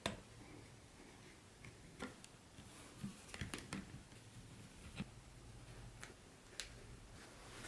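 Sparse light clicks and taps of a model train set's parts and packaging being handled: a sharper click at the start, a quick cluster of clicks a few seconds in, then a few single taps.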